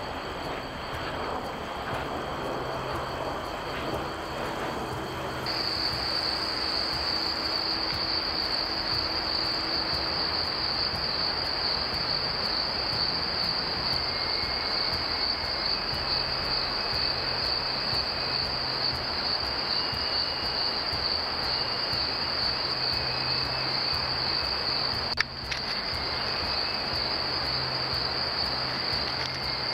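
Crickets trilling in one steady, continuous high-pitched chorus over a hiss of night background noise, starting about five seconds in. A single sharp click breaks in about 25 seconds in.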